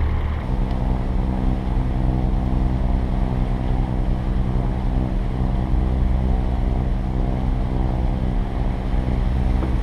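A sailing catamaran's inboard diesel engine running at a steady speed while motoring under way, an even drone that holds its pitch throughout.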